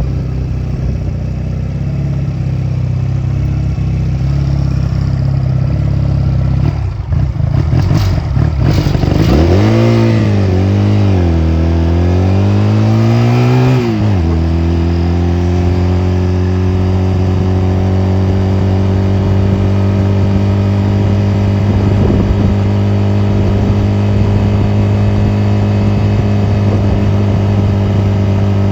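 Honda 250cc motorcycle engine under way, running steadily at first. About a third of the way in it revs up and down in pitch a few times as it accelerates and eases off, then settles into a steady drone at cruising speed.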